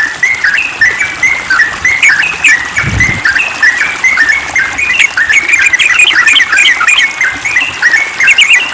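Yellow-vented bulbul (trucukan) singing a rapid, unbroken run of quick chattering notes. A brief low thump about three seconds in.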